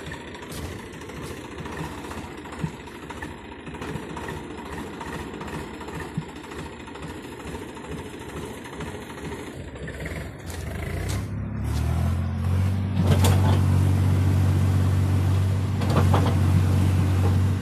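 Swaraj 735 FE tractor's diesel engine running at idle, then about eleven seconds in revving up to a loud, steady run, as when pulling a fully loaded trolley.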